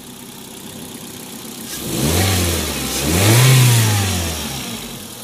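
Honda L13 1.3-litre four-cylinder petrol engine idling, then revved twice, the second rev higher and louder, before dropping back to idle. It runs smoothly with no misfire after a leaking fuel injector was replaced.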